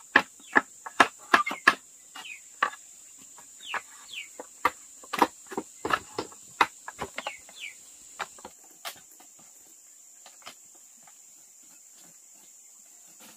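Irregular sharp knocks and taps, coming thickly for the first few seconds and dying out after about nine seconds, over a steady high-pitched insect drone. A few short falling chirps come in among the knocks.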